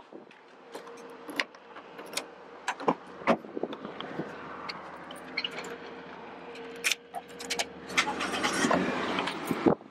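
Handling noise from a handheld camera being carried: a string of sharp clicks and knocks with jingling keys over a faint steady hum, turning to a louder rustle near the end as the camera is covered.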